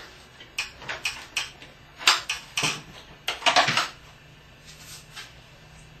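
A small wooden door rattled and pushed by hand against its engaged voice-controlled lock, giving a string of sharp knocks and clatters, loudest about two and three and a half seconds in: the lock is holding the door shut.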